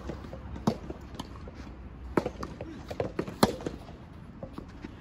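Soft tennis rackets striking the rubber ball during a rally: a series of sharp pops at uneven intervals, loudest about three and a half seconds in, with fainter hits from neighbouring courts.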